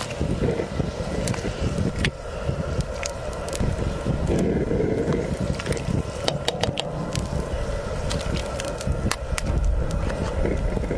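Pot of water at a rolling boil with sausages in it, bubbling over a steady low rumble, with scattered light clicks and splashes as slices of canned meat are dropped in with a wooden spoon.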